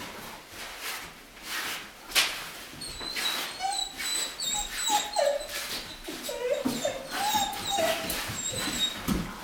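A dog whining: a series of short whines that bend up and down in pitch, coming repeatedly from about three seconds in.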